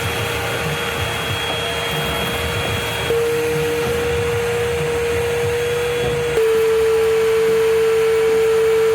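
A small electric motor runs with a steady whine over a rushing noise. It gets louder in a step about three seconds in, then drops slightly in pitch and gets louder again a little past six seconds.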